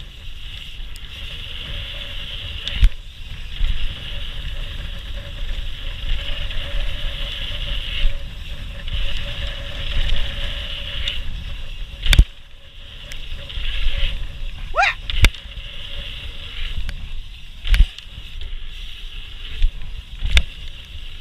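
Mountain bike rolling fast down a gravel flow trail, heard from the rider's camera: steady wind and tyre rumble with a constant hissing buzz, broken by several sharp knocks as the bike hits bumps and lands jumps. A short rising squeal comes about two-thirds of the way through.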